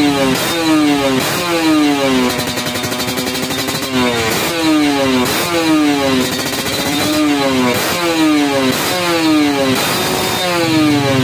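Kawasaki Ninja 150 RR's single-cylinder two-stroke engine is revved in quick repeated throttle blips, about one and a half a second, each falling back in pitch. A short spell of steadier, lower running comes about two to four seconds in. The sound comes through its stock muffler, which has been cut open, reworked inside and argon-welded shut again.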